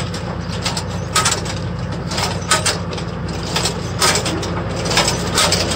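Tractor engine running steadily under a tractor-drawn multi-row vegetable transplanter planting cabbage seedlings, with irregular sharp mechanical clicks and knocks from the planter about once a second.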